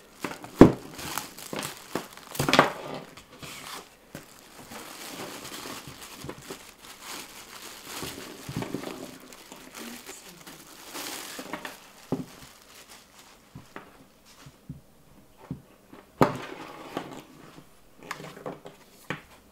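Clear plastic bag crinkling and tearing as it is pulled off a handheld vacuum, with a few sharp knocks from handling, the loudest about half a second in.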